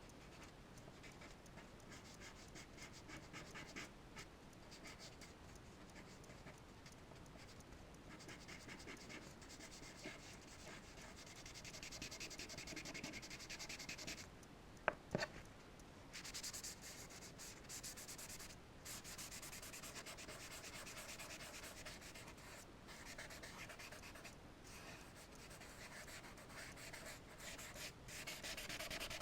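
Charcoal scratching and rubbing across paper in rapid back-and-forth strokes, with two sharp clicks about halfway through.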